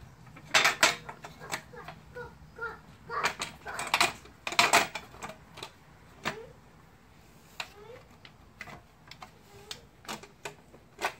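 Aftermarket chrome grille insert being pressed and pushed into a 1991–96 Chevrolet Caprice/Impala grille shell by hand: irregular plastic clicks and knocks, bunched in the first five seconds and sparser after, as the insert goes in with a tight fit.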